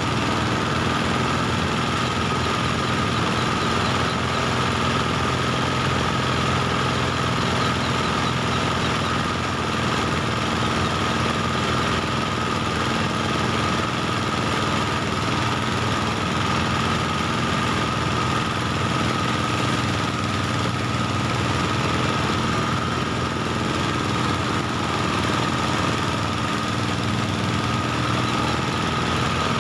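Engine-driven rice threshing machine running steadily, its small engine and spinning threshing drum making a constant drone with a steady high hum over it, while bundles of rice stalks are fed in.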